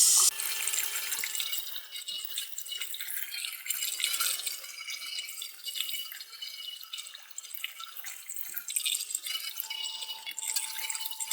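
Water from a sink tap hitting a CPU heatsink that is being rinsed of caked-on dust. A loud gush cuts off right at the start, then uneven dripping and splashing runs off the fins.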